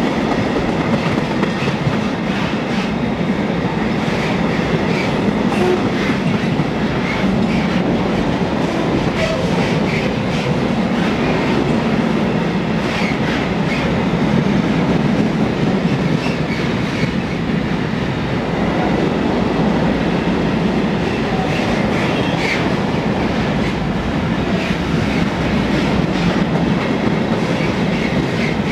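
Freight train of bogie hopper wagons rolling steadily past: a continuous heavy rumble of wheels on rail, with scattered sharp clacks from the wheelsets.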